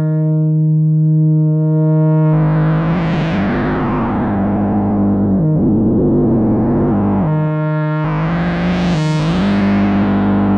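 Electronic buzz of a K176LA7 (CD4011-type) CMOS NAND-gate oscillator processed through software effects. It starts as a steady, low buzzing tone rich in overtones. About two seconds in it turns into a rough, noisy, wavering wash with pitch dips, falls back to the clean buzz for a moment, swells noisy again, and settles on a slightly higher buzz near the end.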